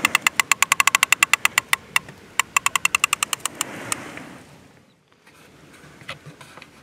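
Multiplier fishing reel clicking rapidly under the strain of a hooked catfish, about a dozen even clicks a second. The clicks slow into scattered ones and stop about four seconds in.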